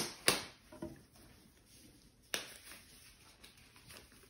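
Disposable rubber gloves being pulled on: three sharp snaps, one at the start, one just after it and one a little past two seconds in, with faint rubbery rustling between them.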